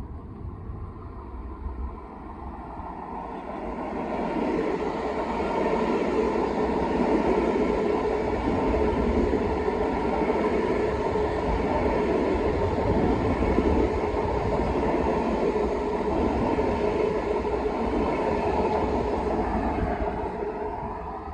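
An LIRR M7 electric multiple-unit train passing close by on the track beside the platform. A steady rush of wheels on rail with a humming tone builds over the first few seconds, holds, and fades near the end as the last car goes by.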